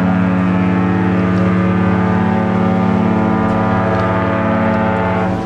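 A ship's horn sounding one long, steady blast that stops shortly before the end.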